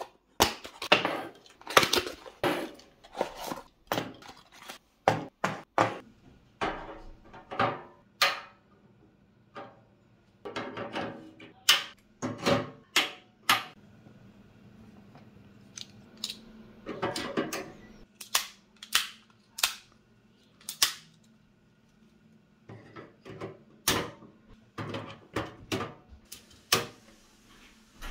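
Plastic modular DIN-rail circuit breakers and relays being handled, set down and snapped onto the mounting rail of a steel panel enclosure: a run of sharp plastic clicks and clacks, unevenly spaced, with short quiet gaps.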